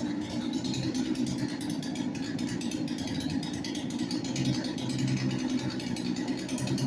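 Gasoline chainsaw engine running steadily at a low, even speed, with no revving up.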